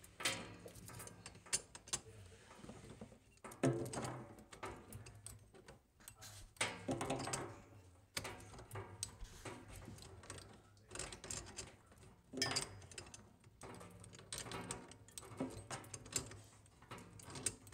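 Pliers gripping and turning the nut of a braided stainless-steel water supply line onto a shut-off valve: irregular metal clicks and scrapes as the jaws bite and reset on the nut, a few louder than the rest.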